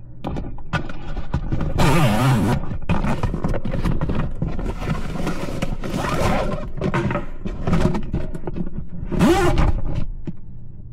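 Stiff waterproof fabric of a Yeti Panga dry duffel bag scraping and rubbing right against the microphone as the bag is handled: a run of rough rustling scrapes with short squeaky groans, loudest about two seconds in and again near nine seconds.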